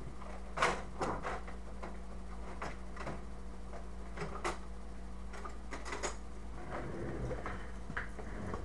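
Irregular small clicks and taps of metal carburetor parts and a hand tool being handled during disassembly, the loudest tap just over half a second in, over a steady low electrical hum.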